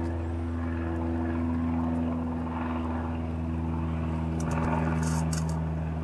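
A steady motor drone with a low hum. A few light rustles and clicks come about four and a half to five and a half seconds in.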